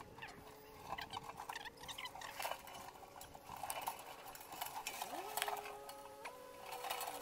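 A metal chain clinking and rattling as it is handled against a steel pipe and drum, with dry leaves rustling. A faint steady drone in the background changes pitch a few times.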